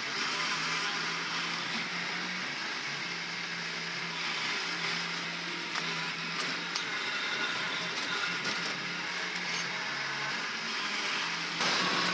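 Kubota B2261 compact tractor's three-cylinder diesel engine running steadily under work with its front loader. It gets louder in a step near the end as the tractor comes back close.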